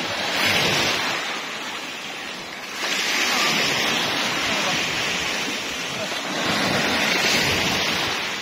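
Small waves breaking and washing up a pebbly sand shore in shallow surf, in three surges a few seconds apart.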